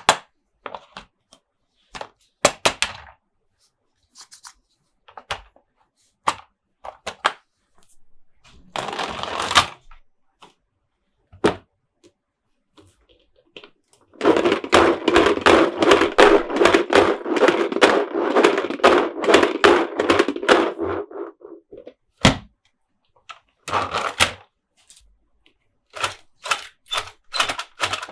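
Plastic Monster Jam toy trucks and playset pieces being handled close to the microphone: scattered sharp taps and clicks, with a steady rattling stretch of about eight seconds in the middle.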